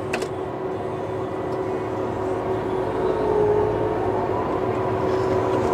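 Claas Lexion 730 combine running close by as it moves past, a steady machine drone with a steady whine on top that grows slightly louder.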